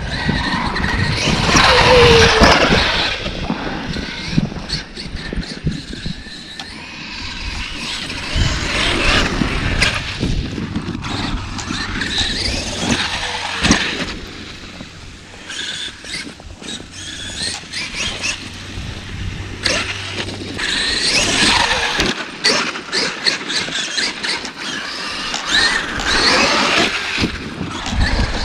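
Traxxas X-Maxx electric RC monster truck's brushless motor whining in repeated bursts as the throttle is punched and let off, with knocks and clatter from the truck in between.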